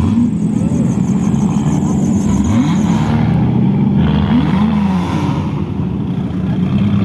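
Off-road buggy engines running at low speed, with short revs whose pitch rises about two and a half seconds in and rises and falls again around four and a half seconds in.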